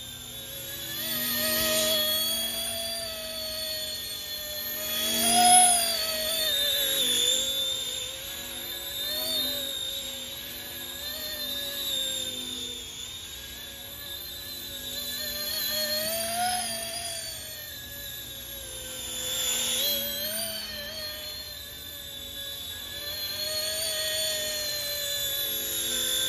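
Small electric RC ERA C190 Airbus H145 model helicopter in flight: a high motor and rotor whine whose pitch wavers up and down with throttle. It swells louder several times as the helicopter comes close, loudest about five seconds in.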